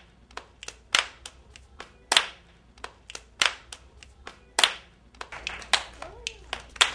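Hand clapping in a steady rhythm: a loud clap about every 1.2 seconds, with lighter claps and taps between them.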